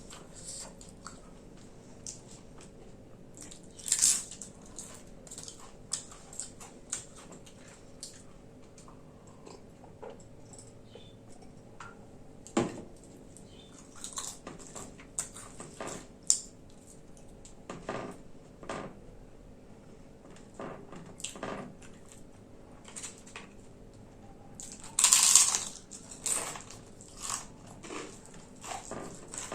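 A person eating khichdi with papad: chewing and biting, with short crunches scattered throughout and louder crunches about four seconds in and near the end.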